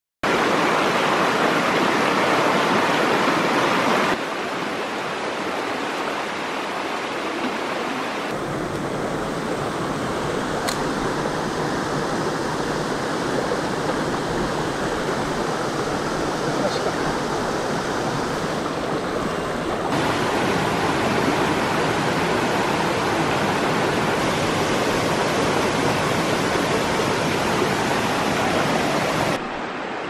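Mountain stream rushing over rocks, a steady rush of water that shifts in loudness and tone several times at cuts between clips.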